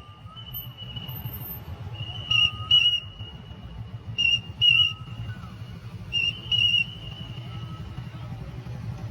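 Traffic police whistle blown in three pairs of short, loud, trilling blasts, the pairs about two seconds apart, over a fainter held whistle tone at the same pitch. A low steady hum runs beneath.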